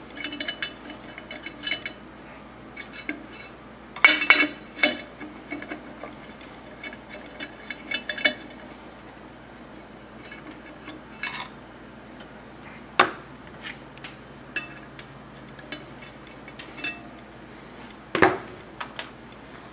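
Scattered metallic clicks and clinks as a Phillips screwdriver works the screws holding a letter's punch and die in a Marsh stencil machine and the small metal parts are handled. A few louder knocks stand out, about four, thirteen and eighteen seconds in.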